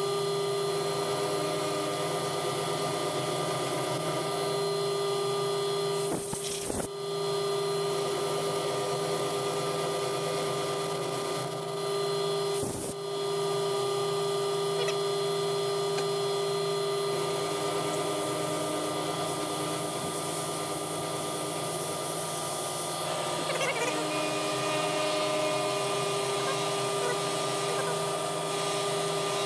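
Milling machine running with an end mill cutting a slot in an aluminium piston: a steady hum of constant pitch, with a few short breaks.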